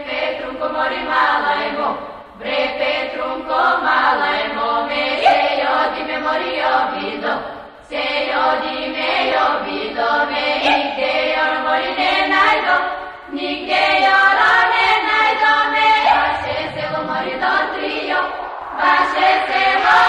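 Vocal music: voices singing together in a choir-like chant, in phrases a few seconds long with brief breaks between them.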